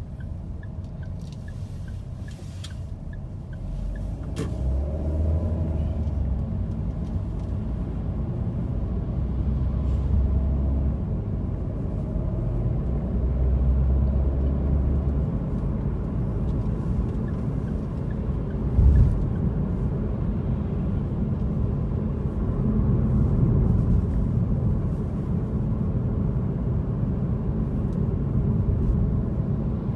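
Car driving on city streets: a steady low rumble of engine and road noise that grows louder about four seconds in as the car gets moving. There is a brief thump about two-thirds of the way through.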